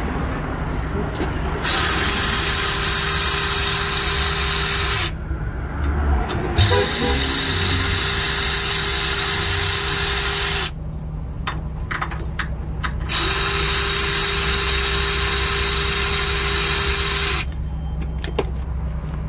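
A power ratchet on a long socket extension runs in three steady spells of about three to four seconds each, with a hiss and a constant whine. It is undoing the mounting nuts of the exhaust injector so the injector can come out.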